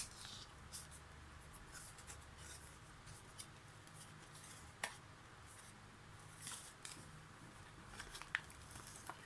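Faint handling sounds of plastic puzzles: scattered light rustles with a few sharp clicks, the clearest about five seconds in and again near the end.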